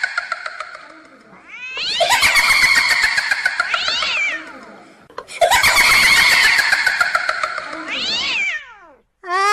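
A drawn-out, cat-like meowing call, heard twice. Each call lasts about three seconds, rising and then falling in pitch.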